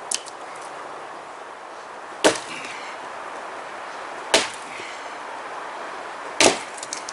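Three sharp chopping strikes about two seconds apart, an axe biting into firewood.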